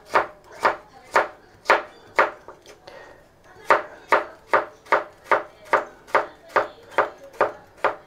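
Kitchen knife slicing a carrot on a wooden cutting board: a regular series of sharp chops, about two a second, with a pause of about a second just before the middle.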